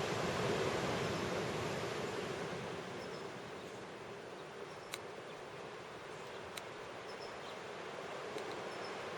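Ocean surf washing in as a steady hiss that swells about half a second in and eases off, with a few faint high chirps and two sharp clicks near the middle.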